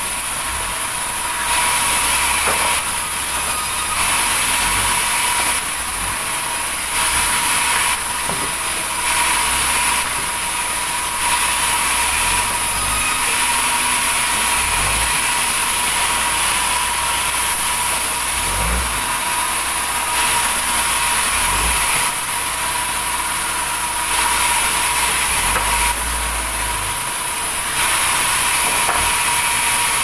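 Large vertical band saw running steadily with a constant whine, its blade cutting planks of red durian wood; the cutting noise swells and drops in repeated spells of a few seconds as each board is pushed through.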